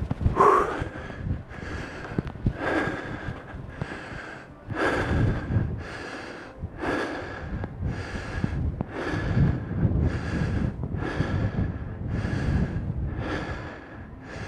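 A man breathing hard and heavily close to the microphone, about one loud breath a second, out of breath from climbing a steep hill.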